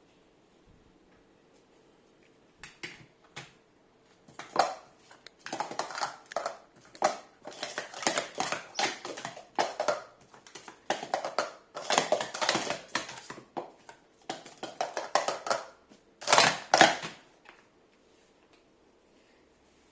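Plastic sport-stacking cups clattering in quick flurries as a doubles pair stacks them up and down, starting about three seconds in. It ends with a loud burst of clatter near the end.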